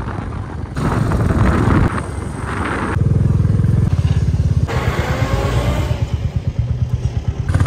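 Motorcycle engine running under way, in several short stretches joined by abrupt cuts, its low pulsing beat strongest from about three seconds in.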